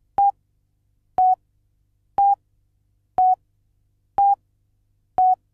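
Countdown leader beeps: six short, pure tones, one each second, alternating slightly up and down in pitch.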